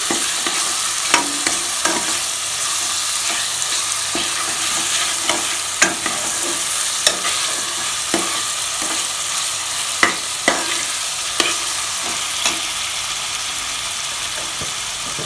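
Chopped tomatoes and onions sizzling in oil in an aluminium pressure cooker, frying down until soft, with a steady hiss. A metal spatula stirs and scrapes the pot, giving sharp clinks now and then.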